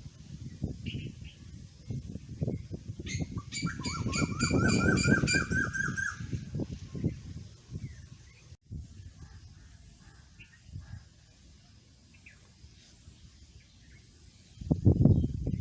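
A bird calling a rapid series of about ten rising notes, over irregular low knocks and rustling. The knocks drop away to faint background partway through and come back loudly near the end.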